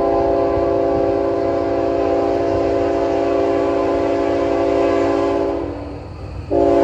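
Train horn sounding a long, steady chord of several notes, fading and breaking off briefly near the end before blowing again, over a low rumble.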